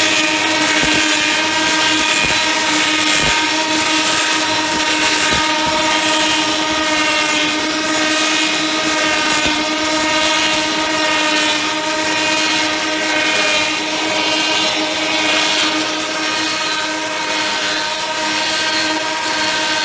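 Wood handle lathe machine running, a steady whine with a noisy hiss over it.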